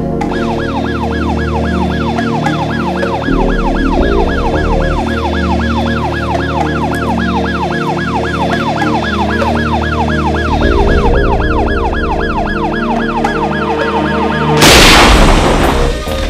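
Rapid yelp siren, its pitch sweeping up and down about three times a second, over background music. About fifteen seconds in it stops and a loud blast goes off, an explosion that throws up a cloud of smoke.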